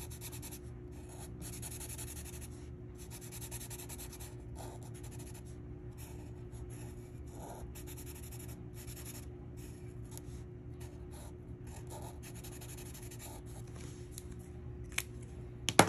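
Yellow Sharpie fine-point permanent marker scratching across paper in short strokes with brief pauses, filling in coloured letters. Two sharp clicks near the end.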